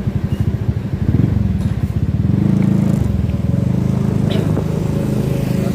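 A vehicle engine running close to the microphone, with a low, pulsing note that is uneven for the first two seconds and then settles to a steady run.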